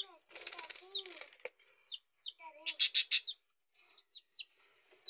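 Caged budgerigars chirping, with many short falling chirps repeated throughout. About three seconds in there is a short loud burst of wing flapping.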